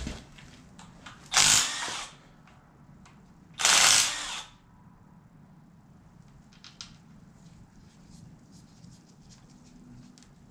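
Handheld power tool run in two short bursts, each under a second and about two seconds apart, backing out bolts on the front of an LQ4 V8 engine. Light clicks and taps of hand tools on metal follow.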